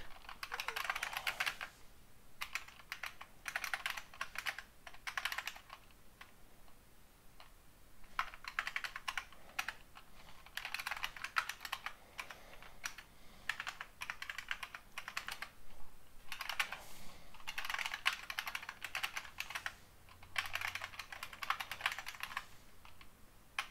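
Typing on a computer keyboard: fast runs of key clicks in bursts of a second or two, with short pauses between.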